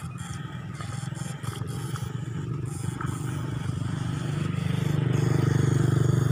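Battery-powered backpack eel electrofishing shocker buzzing with a low, rapid pulse as its probes are swept through the mud, growing louder about four and a half seconds in.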